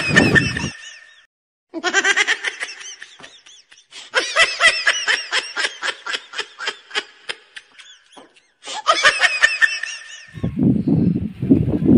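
High-pitched laughter in several runs of quick, evenly repeated 'ha-ha' pulses with short breaks between them, like a comic laughter sound effect. A lower, rougher sound takes over near the end.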